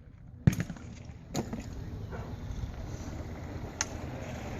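Shotgun reports at a trap range: one sharp crack about half a second in and a weaker one about a second later, over a steady low outdoor background.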